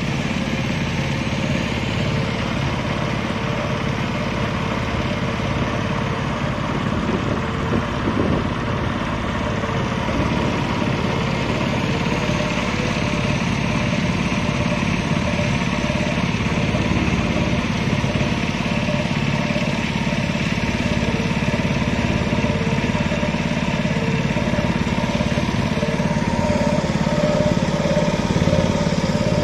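Motorboat engine running steadily at a constant speed, a continuous low drone.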